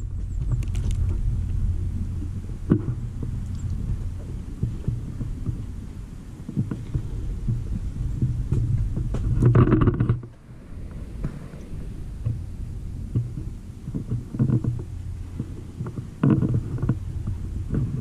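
Low, steady rumble of wind on the camera's microphone, with bumps and knocks from the camera being handled and moved. There is a louder patch about halfway through and a cluster of knocks near the end.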